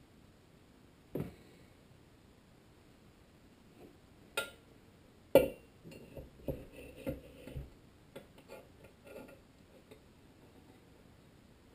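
Tecumseh HSK70 crankshaft knocking and clinking against the engine's crankcase as it is fitted by hand: a few separate metal knocks, the loudest about five seconds in, then a run of lighter clicks and taps.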